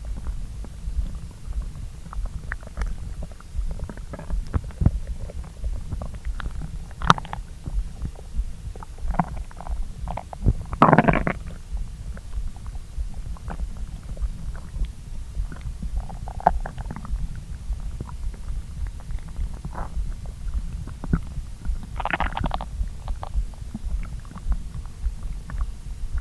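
Human stomach and intestines digesting a freshly eaten meal after a long empty spell. A low, steady rumble runs under many short gurgles and pops, with a longer, louder gurgle near the middle and another later on.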